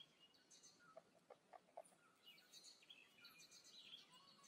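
Faint small-bird chirping: short high chirps repeating on and off over near-silent room tone.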